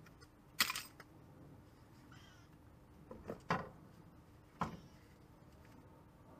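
A few sharp metallic knocks and clicks as a front strut and coil-spring assembly is worked loose and pulled from the hub carrier: one under a second in, a quick pair about three and a half seconds in, and one more just after. A faint, brief high-pitched call is heard about two seconds in.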